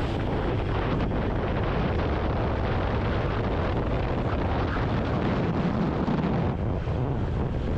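Steady wind rush on the microphone over the running noise of a motor scooter under way on the road.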